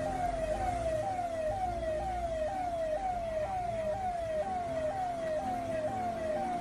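A siren whooping in quick repeating pitch sweeps, about two a second, over a steady low hum.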